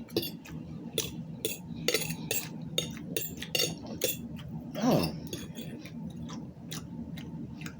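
Eating at a plate close to the microphone: a run of short clicks and clinks of cutlery against dishes. A brief falling hum of a voice comes about five seconds in.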